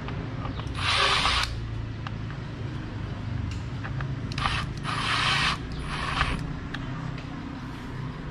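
Cordless power driver running in short spurts, driving the clamp screw that holds a brush cutter's shaft tube in the engine housing: one spurt about a second in, then three more close together past the middle.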